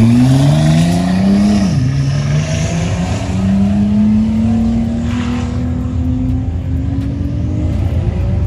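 A high-performance car engine accelerating hard through the gears. The pitch climbs, drops sharply at a gear change about two seconds in, then climbs slowly and steadily in the next gear.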